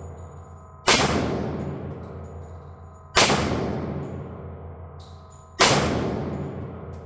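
Three shots from a Tisas D10 1911 pistol in 10mm, about two and a half seconds apart, each loud crack followed by a long echoing decay.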